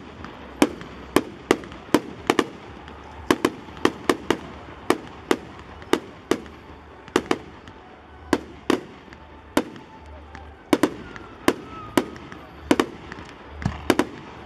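Aerial fireworks bursting in rapid succession: a long run of sharp bangs, about two a second, with hiss between them.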